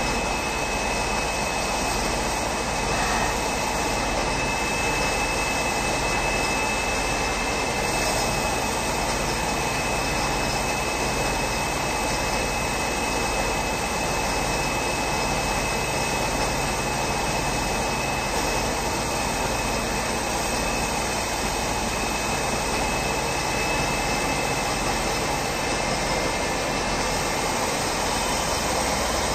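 Homemade metal lathe running steadily under power, its motor and spindle giving an even noise with a steady high whine, while the tool takes a smooth cut without chatter.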